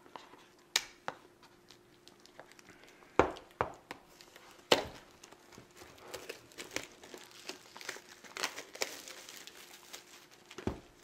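Clear plastic shrink-wrap being torn off a tablet's cardboard box and crumpled by hand: sharp crackles, the loudest about three and five seconds in, then a denser crinkling later on.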